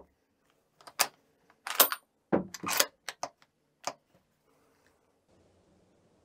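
Bolt of a Kimber Model 84M .308 bolt-action rifle being worked: a quick run of sharp metallic clicks and clacks as the bolt is lifted, drawn back and run forward to chamber the next round.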